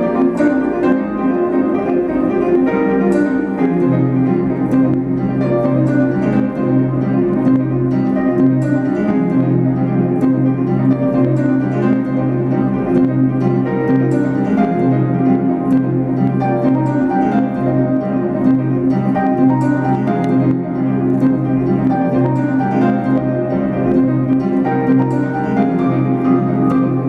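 Instrumental music of plucked, harp-like notes over a steady low held note that comes in about four seconds in.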